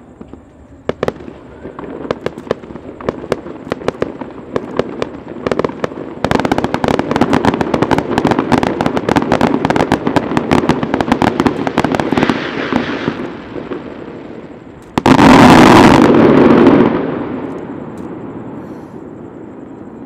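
Aerial fireworks going off. Scattered bangs and crackles thicken after about six seconds into a dense, rapid volley. Near the end comes a very loud, sustained blast of bursts that fades away in a long rumble.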